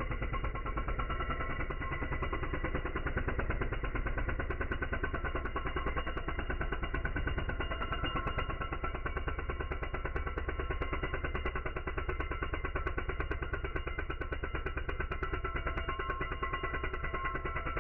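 Pneumatic chisel (air hammer) hammering old mortar out of brick joints: a steady, rapid rattle of blows that sounds dull, with little treble.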